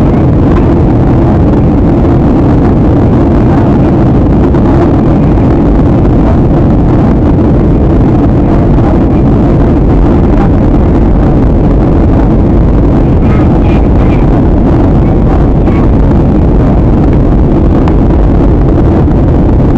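Steady cabin noise inside a jet airliner in flight: an even, loud rush of engine and airflow noise, heaviest in the low range, with no change in pitch or level.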